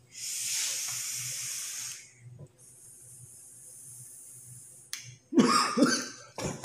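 Breathy hiss of a large vape hit from a box-mod vape with a tank atomizer, drawn and blown out: a strong airy hiss for about two seconds, then a fainter, thinner hiss for a few seconds more.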